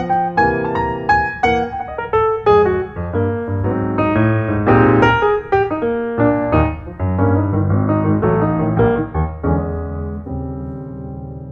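Background piano music: a run of quick notes that slows into held chords and fades away near the end.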